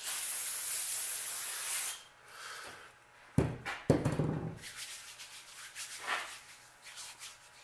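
A steady rubbing hiss for about two seconds, then a sharp knock a little past three seconds, followed by softer scattered rustling of hands handling things on a workbench.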